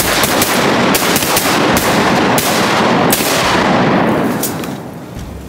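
A volley of shotgun fire from several duck hunters shooting at once: a rapid, overlapping barrage of shots with the reports echoing, thinning out after about four seconds to a couple of last shots.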